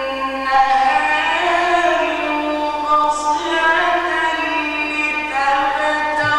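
A man's voice reciting the Quran in the melodic mujawwad style, drawing out long held notes that slide and ornament between pitches.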